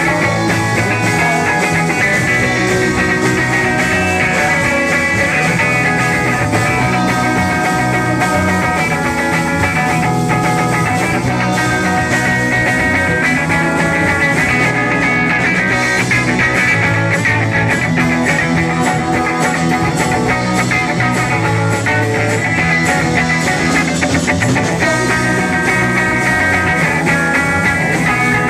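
Rock band playing live, with electric guitar, bass guitar and drums, loud and steady throughout.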